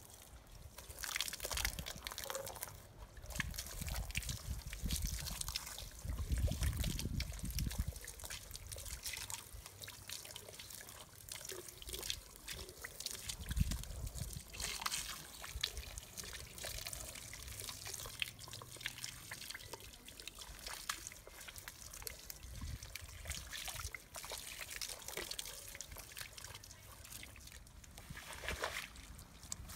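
Water poured from a container trickling and splashing onto a soaked rug lying on wet concrete, coming in several pours with a few low thuds. Near the end a stiff broom begins scrubbing the wet rug.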